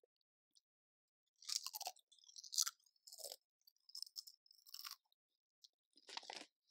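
A person crunching and chewing Doritos tortilla chips, in irregular crunches that begin about a second and a half in.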